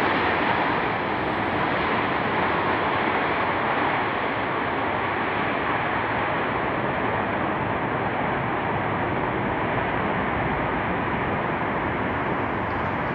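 Airbus A330 jet engines on the landing rollout, a steady rushing noise that eases slowly as the airliner slows on the runway and the reverse thrust winds down.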